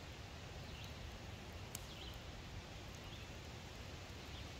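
Faint outdoor woodland ambience: a steady low wind rumble with a few brief, faint bird chirps and an occasional sharp click.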